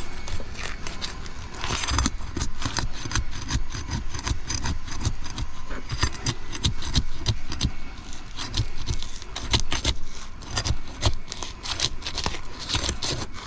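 Old asphalt shingle crackling and tearing as it is lifted, a dense, irregular run of small cracks and scrapes. The shingle is so brittle and thin from age and granule loss that it tears instead of lifting.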